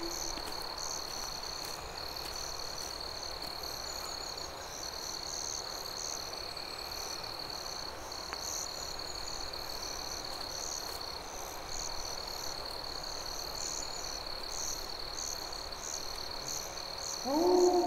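Insects trilling: a steady high-pitched drone with irregular higher chirps over a soft even hiss. Near the end, background music comes in with sliding tones.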